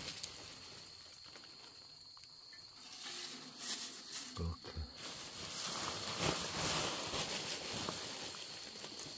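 Dry pine needles rustling faintly as they are spread by hand over a charcoal stove's grate, picking up from about three seconds in, with a couple of short low knocks near the middle.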